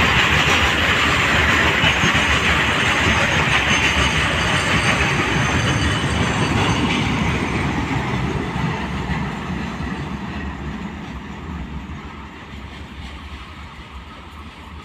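Goods train of loaded BOXN open wagons rolling past close by, its wheels running on the rails. The noise fades steadily in the second half as the brake van goes by and the train moves away.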